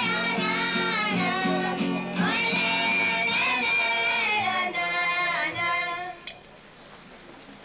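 Folk dance music: a melody sung over a steady instrumental accompaniment, which stops about six seconds in and leaves a quiet stretch.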